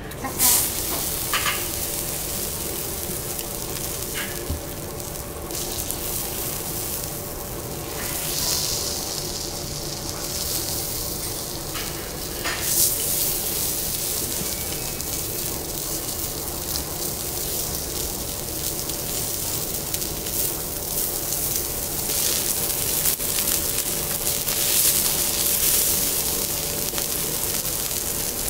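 Thick blocks of Japanese beef sizzling steadily on a hot teppanyaki steel griddle as they sear. There are a few sharp clicks of the steel knife and fork against the griddle, over a faint steady hum.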